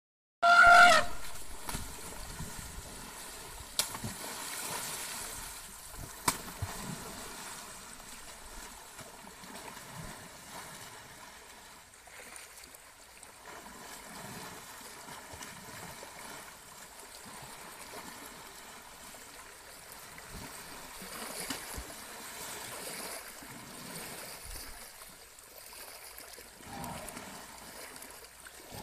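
An Asian elephant gives one brief, loud trumpet about half a second in. After it comes steady water splashing and sloshing as she bathes and sprays water with her trunk, with a few sharper splashes around four and six seconds. A fainter short call comes near the end.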